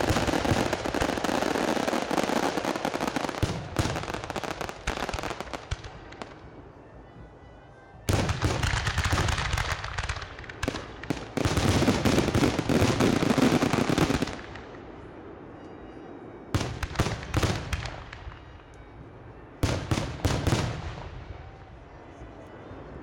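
Fireworks display: aerial shells bursting in dense volleys of rapid bangs, coming in waves. The first volley runs through the opening seconds, the loudest runs from about 8 to 14 seconds in, and two shorter clusters follow before it dies away near the end.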